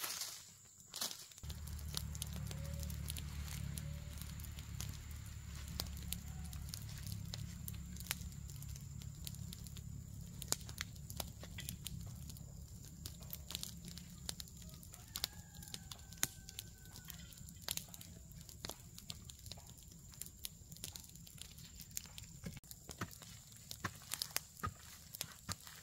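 Hoe chopping and scraping into dry dirt and fallen leaves: irregular sharp knocks and scrapes. Under them a steady low rumble starts about a second and a half in and slowly fades.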